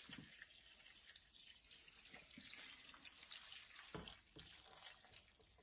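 Water pouring in a thin stream from a plastic bowl onto lentils, mince and spices in a metal cooking pot: a faint, steady trickling splash, briefly louder about four seconds in.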